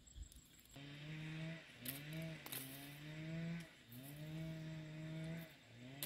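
A small motor running in spurts, starting under a second in: a steady drone that drops out and comes back several times, sliding up in pitch at each restart and shifting between a lower and a higher speed. A few sharp clicks come through it.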